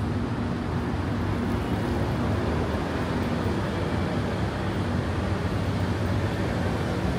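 Steady city road traffic: a continuous low rumble of engines and tyres, with no single vehicle standing out.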